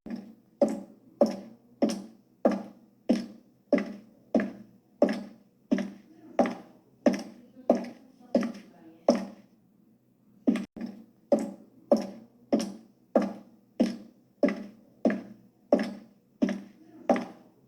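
High-heeled shoes walking, each step a sharp heel click, about three every two seconds, with a short pause about halfway through.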